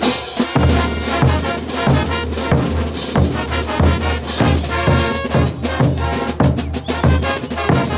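Bolivian brass band playing a morenada: massed brass over a steady bass drum beat of about two strokes a second, with percussion.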